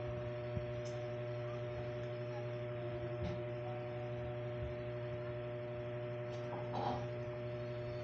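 Steady electrical hum made of several fixed low tones, with a few faint scattered clicks.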